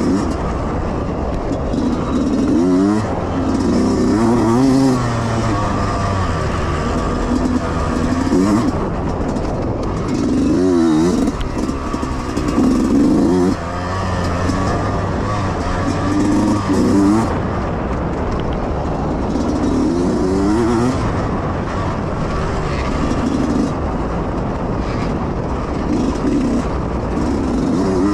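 Yamaha YZ125X two-stroke dirt bike engine under load, revving up and falling back again and again as the throttle is worked and gears change through the lap.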